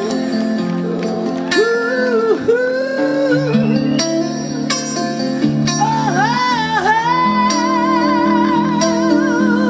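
Live band playing the closing bars of a slow Malay pop ballad: sustained guitar chords under a wavering melody line with heavy vibrato.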